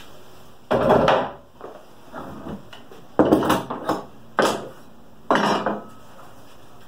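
Metal bar clamps and loose wooden pieces clattering as they are picked up and set down on a wooden workbench, in four short bursts.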